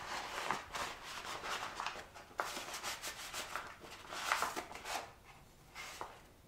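Paper packaging being handled: irregular rustling and rubbing with small clicks, dying down near the end.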